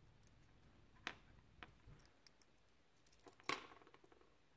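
Tiny eyeglass-repair flathead screwdrivers clicking against a small plastic lighter-socket guide as they pry at its locking tab: a few faint scattered clicks, the sharpest about three and a half seconds in.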